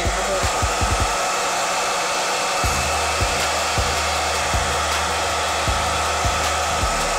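Handheld hair dryer switching on and then blowing steadily, drying the hold spray on a lace-front wig's hairline. A background music beat runs underneath.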